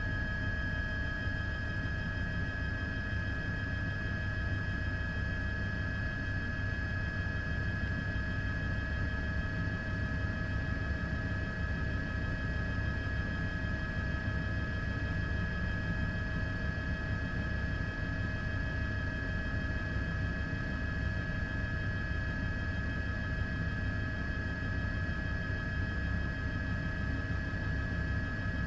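Steady helicopter engine and rotor drone: a low rough rumble under a constant high whine, unchanging throughout.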